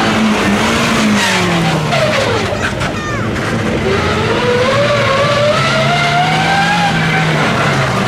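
Toyota HiAce rally van's engine working through a turn: its pitch dips as it slows, then climbs steadily as it accelerates away about halfway through. Tyres skid on the dusty surface.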